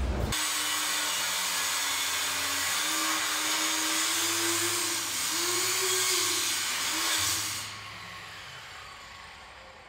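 Angle grinder cutting through an old metal water pipe at the base of a wall, throwing sparks. Its motor pitch wavers as the disc bites. The cut ends about three-quarters of the way through, and the grinder winds down near the end.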